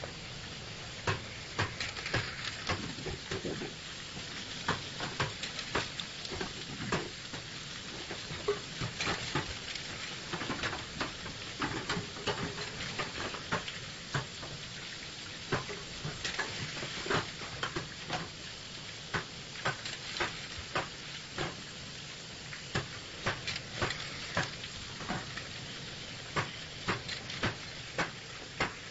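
Soft-boiled egg peeling machine running: a steady hiss with frequent, irregular clicks and knocks throughout.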